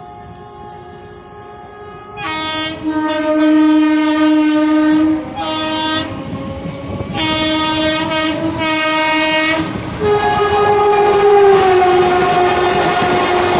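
WAP-4 electric locomotive's horn sounding in long, repeated blasts, fainter at first and loud from about two seconds in, with two short breaks. Near the end a held blast drops in pitch as the rumble and clickety-clack of the train rise.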